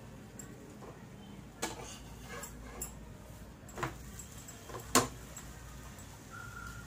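Metal spatula clicking and scraping against a tawa while lifting and flipping a paratha: about five short clicks, the loudest about five seconds in.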